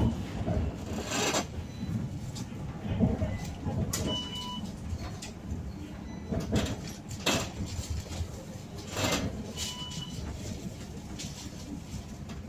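Inside a moving tram: a steady low running rumble with scattered clicks and knocks, and a short electronic beep twice, about four and ten seconds in.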